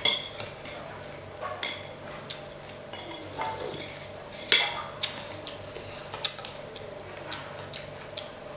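Metal spoons and a fork clinking and scraping against ceramic plates and a glass bowl while two people eat: a string of scattered, irregular clinks, the loudest about four and a half seconds in.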